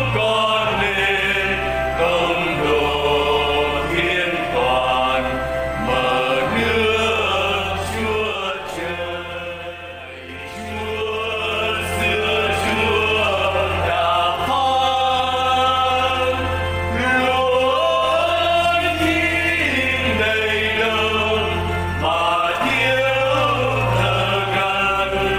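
A Vietnamese hymn sung over accompaniment with steady low bass notes; the music dips briefly between phrases about nine seconds in.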